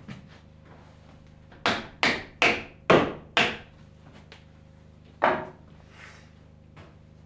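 Hammer blows driving wooden pegs into a joint of a timber roof frame: five strikes about two a second, then one more about two seconds later.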